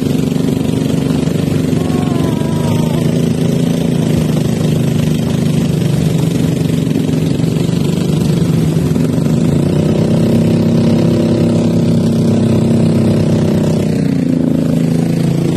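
Small boat's engine running steadily, its note shifting slightly about two-thirds of the way in.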